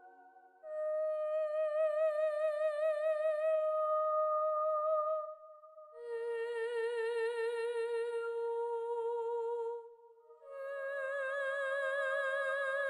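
Slow, wordless background music of long held notes with a wavering vibrato, in a humming, voice-like tone. A new note begins about every five seconds after a short pause.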